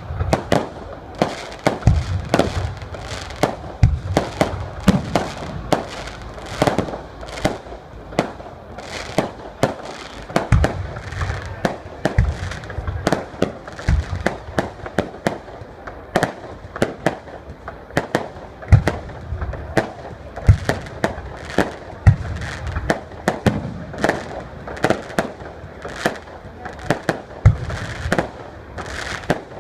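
Fireworks display: aerial shells bursting in quick, irregular succession. Many sharp bangs, some with a deep boom.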